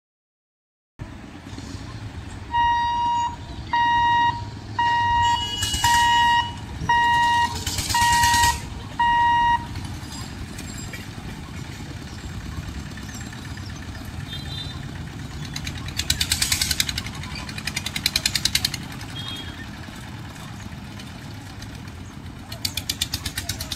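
Light road traffic of motorcycles and rickshaws moving over a railway crossing, with engines passing close by twice in the second half. Early on, seven evenly spaced high electronic beeps sound, each a little under a second long.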